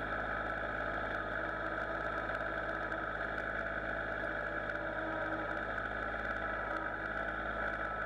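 Kubota compact tractor's diesel engine running steadily as the tractor is driven slowly into position.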